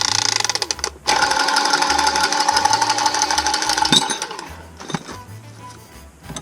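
A cordless power tool's motor runs in two bursts, a short one and then one of about three seconds, with a fast rattling pulse and a steady whine, then winds down.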